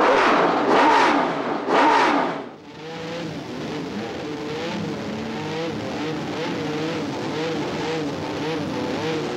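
Matra V12 engine of a Ligier Formula 1 car revved hard three times in quick succession. It then drops to low revs, running with a wavering, uneven note under light throttle.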